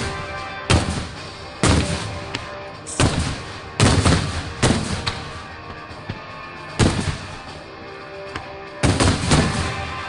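Aerial fireworks shells bursting, about seven sharp bangs at uneven intervals, each with a trailing rumble, over music playing in the background.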